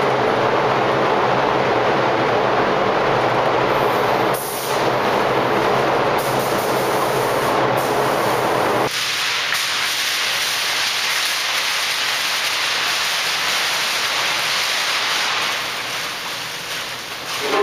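Steady rushing air noise of a paint spray booth's ventilation, with a low hum under it. About nine seconds in the low hum drops away and a thinner, higher hiss carries on.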